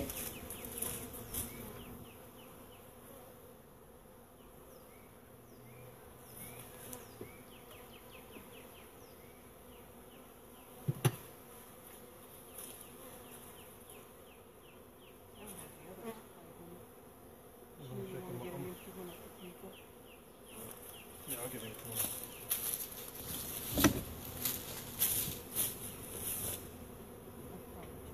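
Honeybees buzzing in the air around a freshly installed package of bees, a faint steady hum. A sharp click about eleven seconds in and a run of knocks in the last several seconds come from the wooden hive parts being handled.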